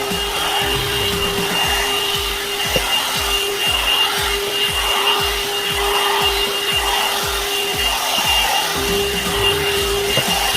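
A one-step hot-air brush hair dryer running steadily: a constant motor whine over a rush of blown air, with the round bristle brush rubbing through damp hair.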